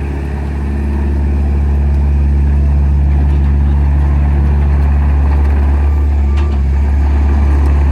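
Wacker Neuson mini excavator's diesel engine running steadily at a constant speed.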